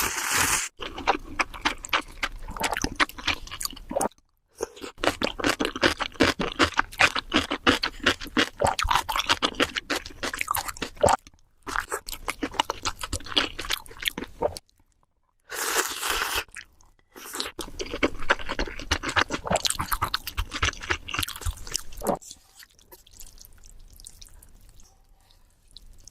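Close-miked eating: crunchy chewing and wet mouth sounds, in several stretches that cut off abruptly.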